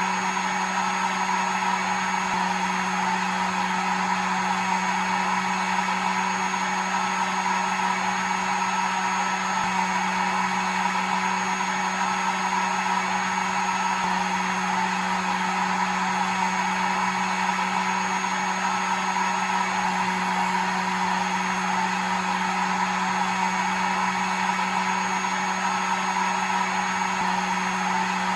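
Hair dryer blowing continuously, a steady whooshing airflow with a constant motor hum. It is played as white noise to soothe a baby to sleep.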